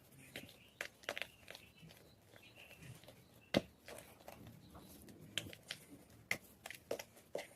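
White gym chalk crunching and crumbling in a run of irregular sharp crackles and snaps, the loudest about halfway through.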